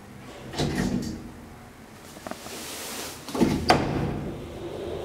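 DEVE hydraulic elevator's doors closing: a clunk about half a second in, then a loud double clunk about three and a half seconds in, followed by a low steady hum.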